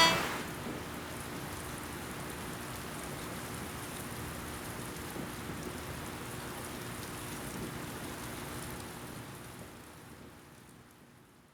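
Steady rain falling, a continuous even hiss that fades out over the last couple of seconds.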